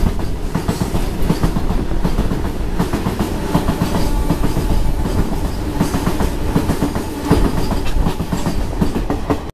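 Two trains passing at speed: a rake of BCNAHL covered freight wagons runs past close alongside, heard from the open door of a moving passenger coach. It makes a steady heavy rumble with rapid clickety-clack of steel wheels over rail joints.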